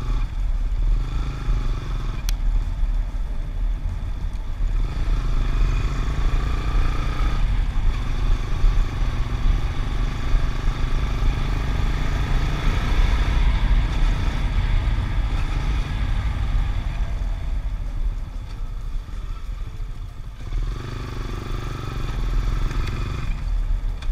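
Yamaha Sniper 150's single-cylinder four-stroke engine running while the motorcycle is ridden, its pitch rising and falling several times as the rider speeds up and eases off. Wind rumble sits underneath on the handlebar-mounted camera's microphone.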